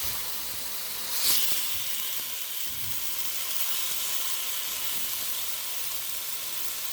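Chicken, garlic and ginger sizzling steadily in a hot skillet over a high flame, with a brief louder surge of sizzle about a second in.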